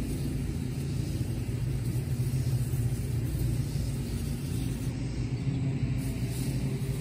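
Steady low motor hum with a constant pitch.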